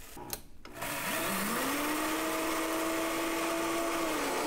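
Rolled oats being chopped in an electric kitchen chopping machine: the motor starts about a second in, spins up and then runs steadily with a whine, easing slightly in pitch near the end.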